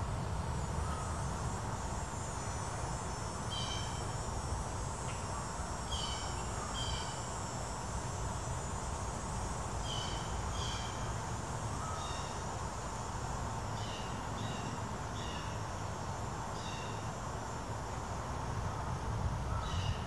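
Downy woodpecker giving short, sharp pik calls, about a dozen spaced irregularly, over a steady high insect drone and a low rumble.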